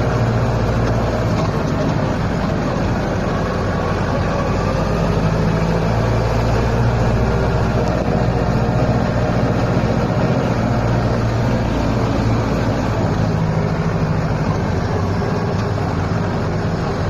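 Small orange farm tractor's engine running steadily as the tractor drives along.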